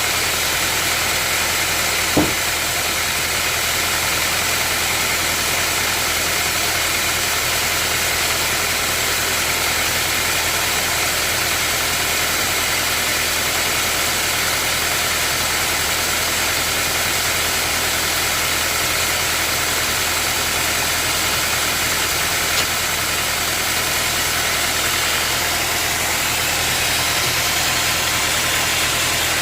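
Sawmill machinery running with a steady, unchanging hum and hiss, with one sharp knock about two seconds in.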